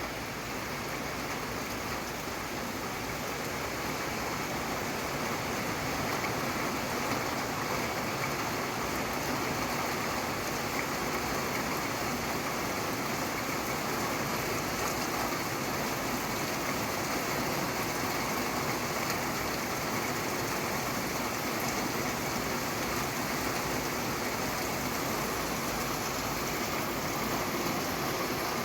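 Steady rain falling, an even continuous hiss of drops that swells slightly over the first few seconds and then holds level.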